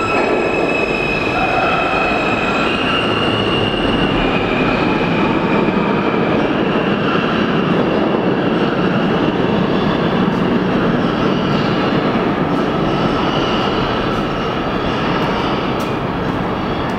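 New York City subway R160A train pulling out of the station and running away down the tunnel: a steady rumble of wheels on rail, with high squealing tones over it.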